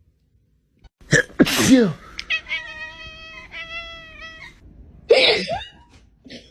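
A sharp human sneeze about a second in, then a cat's long, steady meow lasting about two seconds, and another similar sneeze-like burst near the end.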